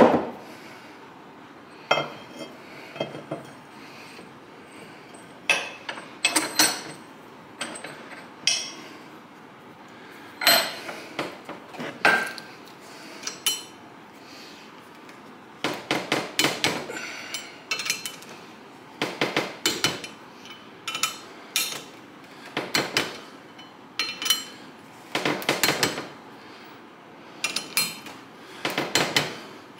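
Metal hand tools and parts clicking and clinking in short, irregular clusters with quiet gaps between, some strikes ringing briefly.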